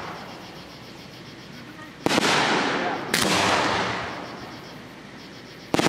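Aerial firework shells bursting: two sharp booms about a second apart around two seconds in, each dying away in a long rumbling echo, and a third boom near the end.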